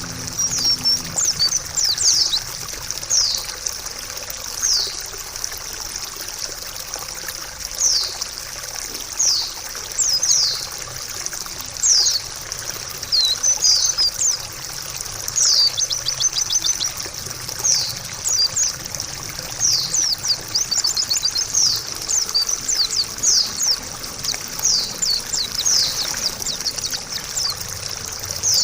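White-eye (pleci) chirps: quick, high, falling notes repeated in irregular runs, over a steady trickle of running water.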